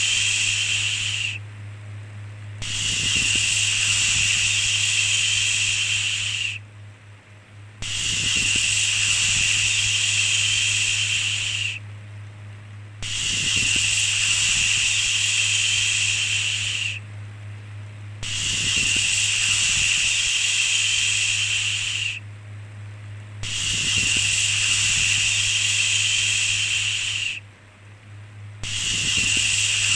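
Repeated long 'shhh' shushing sounds, each lasting about four seconds with a short break of about a second between them, over a steady low hum.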